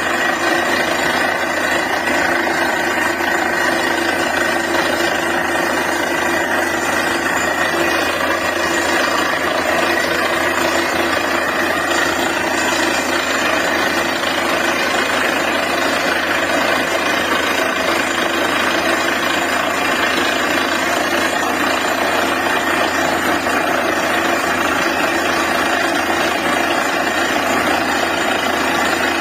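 Borewell drilling rig running steadily at full work, a loud continuous machine noise of engine and compressor with no break.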